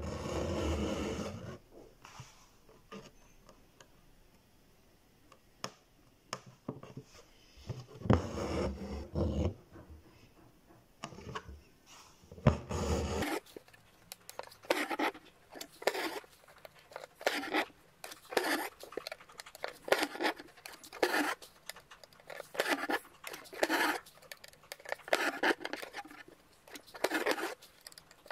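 Six-strand embroidery floss drawn through the fabric of a hoop-stretched tote bag during stem stitching, a short rasping pull about once a second through the second half. In the first half a dog growls three times.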